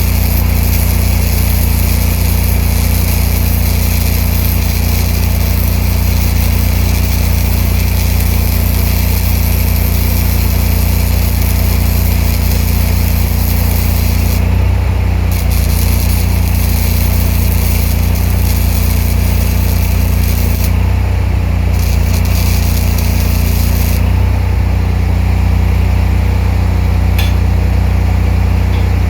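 Engine-driven welder-generator running under load while a spool gun lays a MIG weld with a steady crackling hiss from the arc. The arc breaks off briefly twice and stops about 24 seconds in, and each time the engine note shifts as the load comes off.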